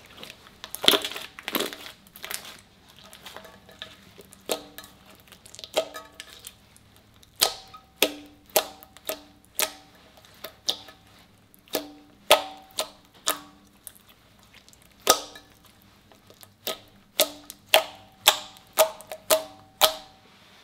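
Fingers pressing and poking into thick white slime, making sharp, irregular sticky pops and clicks as they push in and pull free. The pops come in clusters and run quickest near the end.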